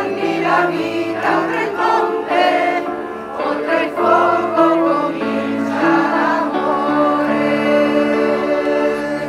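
A crowd singing together as a choir, accompanied by a portable electronic keyboard, with long held notes over the last couple of seconds.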